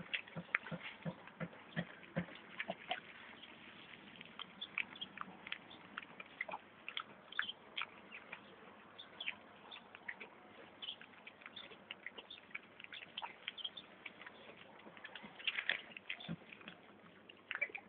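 An American Staffordshire Terrier puppy playing and moving about: faint, scattered light clicks and taps, bunching together briefly near the end.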